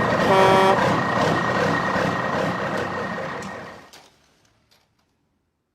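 Vehicle engine running with two short horn honks, one right at the start and another about half a second in, then the engine noise fades out over about four seconds into silence.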